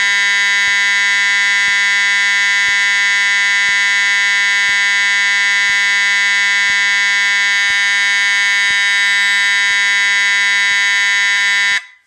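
Edwards EST 757-7A-HS Integrity fire alarm horn, with its older 792-series sounder, sounding a loud, steady, continuous electronic tone with no temporal coding. A faint click comes about once a second as the strobe flashes. The horn cuts off sharply just before the end.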